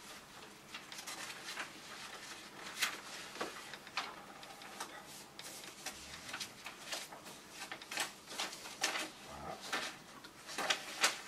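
Irregular rustles and light clicks of paper documents being handled and leafed through on a table, scattered unevenly with no steady rhythm.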